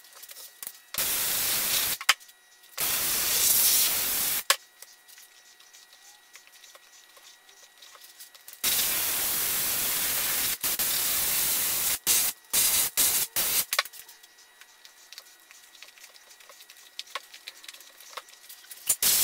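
Compressed-air spray gun with a glass cup spraying glue onto a foam seat base, hissing in bursts: two short ones in the first few seconds, a longer one of about three seconds, then a string of quick short squirts.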